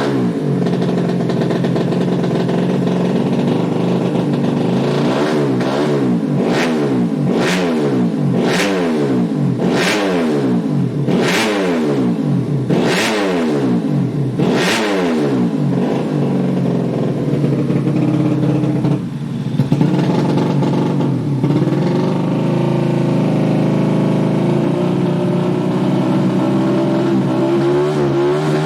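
Modified 130cc underbone motorcycle engine being revved in repeated blips, each rising and falling about every second and a half, with a sharp crack at the top of many of them. For the second half the engine is held at a steadier, raised speed.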